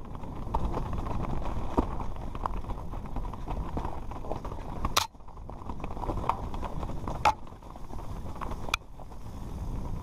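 Mountain bike descending a rocky trail: tyres running over loose stones and the bike rattling, heard from a helmet-mounted camera with a steady rumble of wind and ground noise. Three sharp knocks from hard impacts come in the second half.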